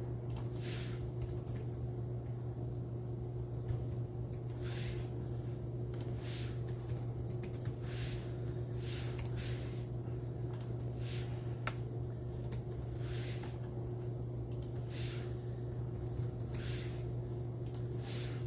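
A steady low electrical hum runs throughout, with soft, irregular keyboard taps coming about once a second or so.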